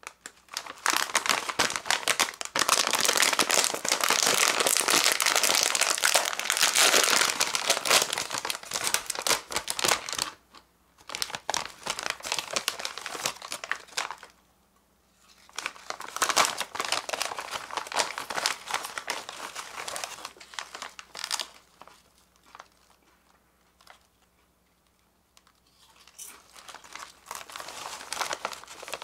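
Plastic potato chip bag crinkling as it is handled and torn open, then rustling as a hand reaches in for chips. A long, dense stretch of crinkling for the first ten seconds, then shorter bouts with pauses, softer near the end.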